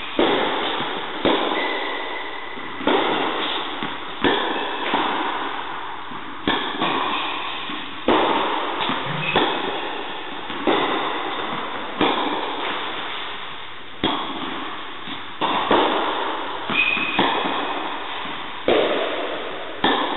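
Tennis rally on an indoor court: sharp pops of the ball off the racket strings and bouncing on the court, about one every second or so, each ringing on in the hall's echo.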